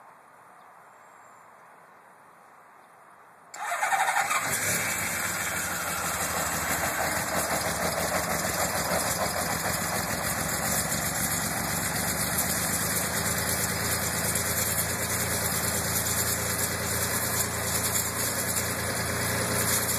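Honda CBX's air-cooled inline six-cylinder, six-carburettor engine cold-starting: it catches suddenly about three and a half seconds in and settles into a steady idle as it warms up.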